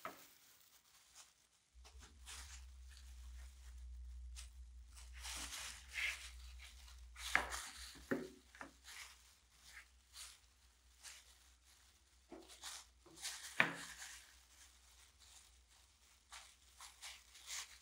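Loose plastic disposable gloves crinkling and a stain-soaked sponge rubbing on a wooden saw handle as wood stain is wiped on. The sounds are soft, irregular rustles and scrapes with a few sharper crackles, over a low hum.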